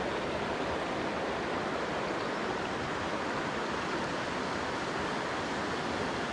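A mountain creek rushing steadily, an even water noise with no breaks.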